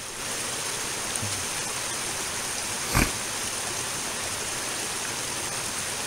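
Shallow creek water running over rocks, a steady rushing hiss, with one short knock about halfway through.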